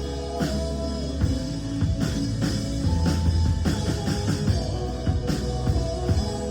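Live worship band playing an instrumental passage with no singing: drum kit hits over a steady bass and held chords.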